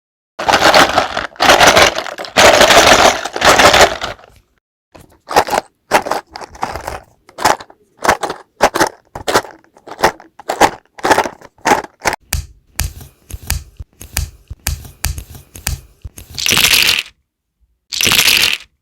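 LEGO bricks rattling as they are shaken, first in four long bursts, then in many short, quick shakes. From about twelve seconds in, bricks clicking as they are snapped together, with low thuds. Near the end, two short bursts of bricks being poured out.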